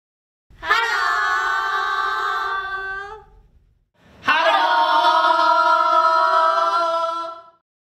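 Two groups of voices, each singing one long drawn-out call together at a steady pitch for about three seconds: first several women, then, after a short gap, a man, a boy and a woman.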